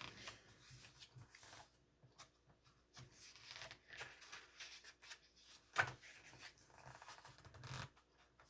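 Pages of a glossy album photo book being handled and turned: soft paper rustles, with one sharper page flip about six seconds in.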